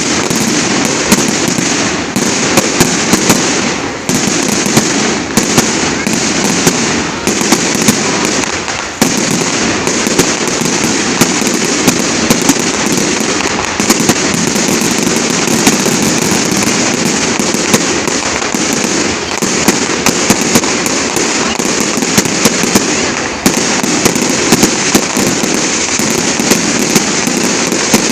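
Fireworks display: a dense, continuous barrage of crackling with many sharp bangs throughout.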